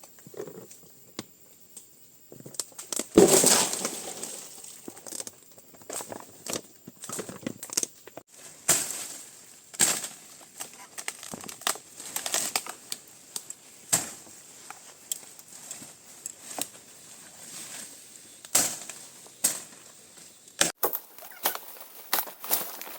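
Irregular rustling and crunching with scattered crackles, like material being handled or crushed, loudest in a crunch about three seconds in.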